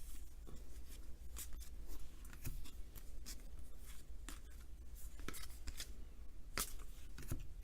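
Baseball trading cards being slid and flipped one by one through the hands: soft card-on-card rubbing with irregular light clicks, several times a second, loudest a little after six seconds in.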